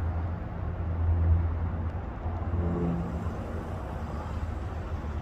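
Airplane passing overhead: a steady low rumble, loudest a little over a second in.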